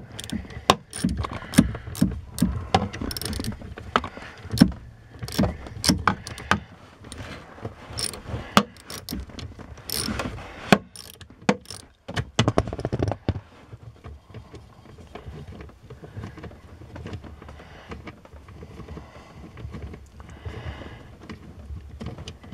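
Socket wrench, swivel and extension clicking and rattling as the top 10 mm bolt of the accelerator pedal assembly is worked loose. Sharp irregular clicks come through the first half, then quieter handling sounds.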